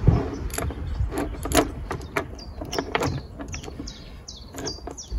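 Loose saw chain clicking and rattling against a chainsaw's guide bar and drive sprocket as it is worked into the bar groove and around the sprocket by hand: irregular metallic clicks and knocks.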